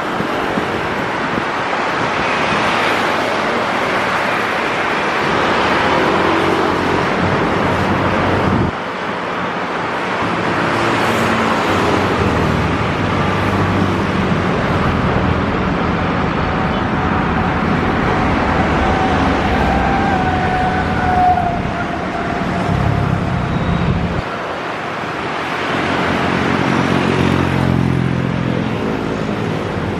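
Continuous roar of jet airliner engines, with a thin steady whine through the middle stretch. The sound changes abruptly twice, about a third of the way in and again near the end.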